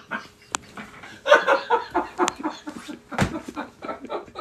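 People laughing hard in quick, breathy bursts, with a single thump about three seconds in.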